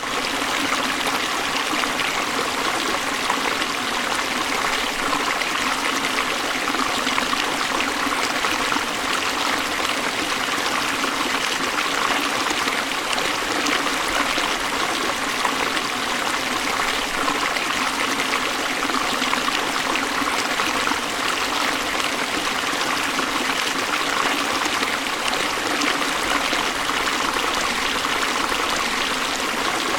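River water rushing over falls: a steady, even rush of flowing water that does not change.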